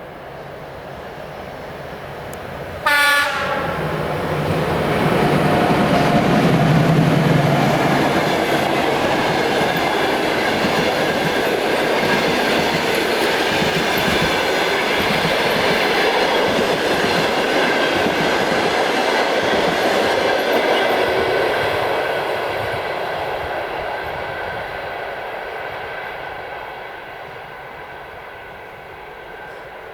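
ChS7 electric locomotive sounding one short horn blast about three seconds in, then hauling a passenger train past with wheels rattling over the rails. The rumble builds quickly, holds for some fifteen seconds, and dies away near the end.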